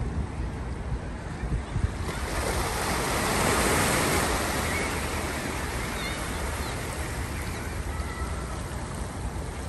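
Small ocean wave washing in over shoreline rocks, swelling about two seconds in, peaking a couple of seconds later and slowly ebbing away.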